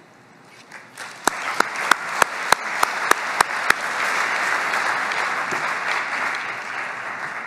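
Audience applauding. It starts about a second in, with a run of loud, distinct single claps, about three a second, standing out over the swelling patter of many hands, which then fades toward the end.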